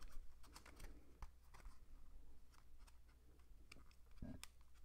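Near silence with faint, scattered clicks and ticks from a cardboard disc book being held and its pages handled, and a low bump about four seconds in.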